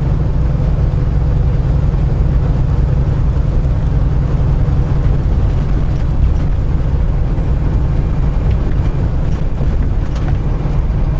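Semi-truck on the road: a steady low engine drone mixed with road noise, unchanging throughout.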